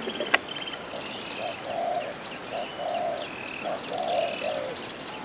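Doves cooing in short repeated phrases, with higher bird chirps over them and a steady high-pitched whine throughout. A single sharp click sounds about a third of a second in.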